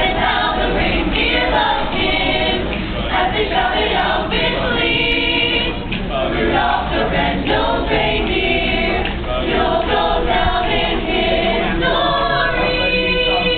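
A choir singing in harmony, with several voice parts held together in long sung phrases.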